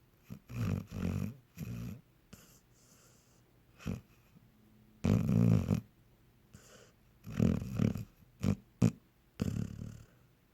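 Dog snoring in its sleep, cartoon-like: about eight snores of uneven length at irregular gaps, the longest and loudest about halfway through, with two short sharp ones later on.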